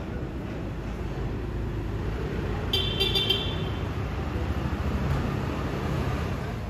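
Street traffic rumbling, with a vehicle horn giving a few quick, high toots about three seconds in.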